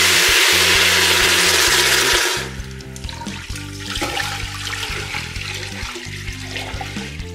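Water poured from a stainless steel bowl into an aluminium pressure cooker: a loud, heavy splashing stream that drops to a softer, lighter pour about two and a half seconds in.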